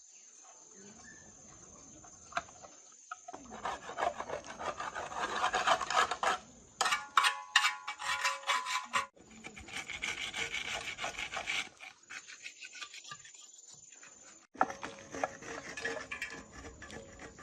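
Rapid, repeated rasping and scraping strokes, like filing, sanding or wire-brushing, in several short bursts that change abruptly, with brief metallic ringing in one of them.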